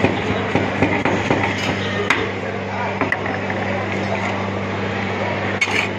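Metal hand grater scraping a chocolate bar and tapping against a steel ice-cream cold plate, with scattered sharp knocks, the strongest about two, three and five and a half seconds in. A steady low hum runs underneath.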